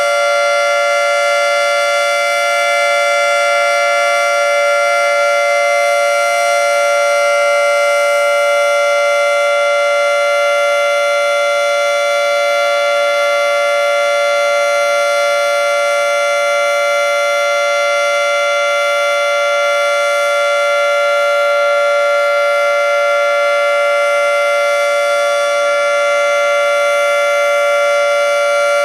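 Federal Signal 2T22A dual-tone outdoor warning siren sounding a steady alert signal on its monthly test: loud, holding two unchanging tones with no rise or fall in pitch.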